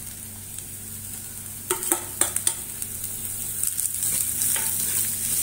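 Chopped carrots and green beans sizzling in hot oil in a kadai as a steel spoon stirs them, scraping the pan. A few sharp knocks come about two seconds in, and the sizzle grows louder toward the end.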